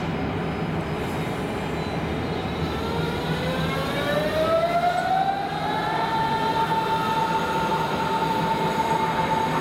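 An electric train's traction motors whining as it accelerates, over the steady rumble of the train running. The whine rises smoothly in pitch for about four seconds, starting about two seconds in, then holds at one pitch.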